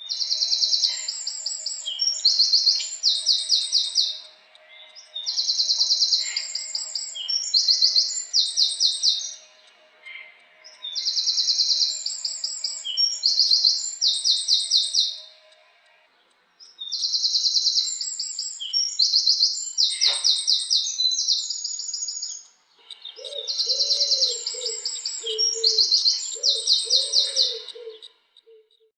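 Wren singing: five songs in a row, each a few seconds of rapid trills and rattles pitched high, with pauses of about a second between them. In the last few seconds, softer, lower warbling notes join in under the song.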